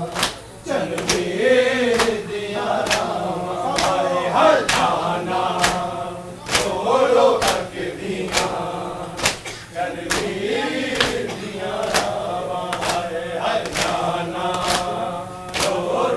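Men chanting a noha in unison to the rhythm of matam, open hands beating on chests in an even beat of about three strikes every two seconds.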